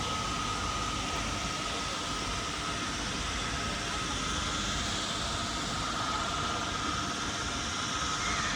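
Steady ambience of a busy city pedestrian street: an even hiss and rumble with no single event standing out, and a faint steady high tone running through it.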